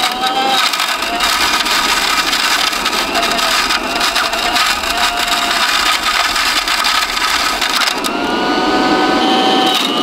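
Electrolux Trivac stick vacuum's motor running with a whine that wavers slightly in pitch, mixed with crunching and scraping as a spade strikes it and heaps dirt onto it.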